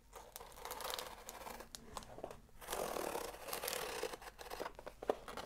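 A Spyderco folding knife's blade slicing along clear packing tape on a cardboard box: scratchy, tearing strokes in two long runs with a short pause between them.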